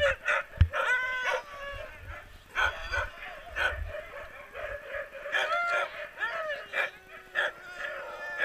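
Harnessed sled dogs (huskies) yipping, whining and barking in many short, high-pitched calls that bend up and down in pitch. There are two dull knocks near the start.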